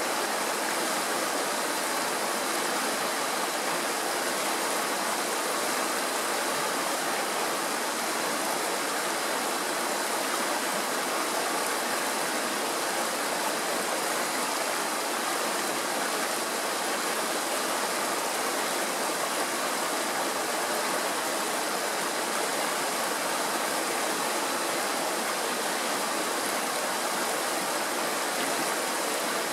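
Shallow mountain stream rushing over rocks and small riffles: a steady, even rush of water that does not change.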